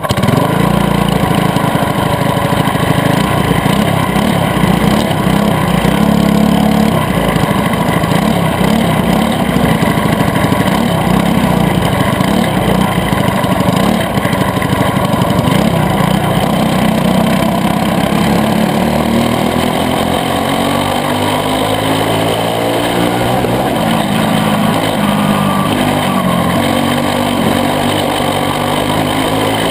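Caged dirt kart's single-cylinder Briggs & Stratton Animal engine heard onboard. It runs with a rough, uneven low rumble at slow speed for the first half, then from about halfway its pitch climbs as the kart speeds up onto the track.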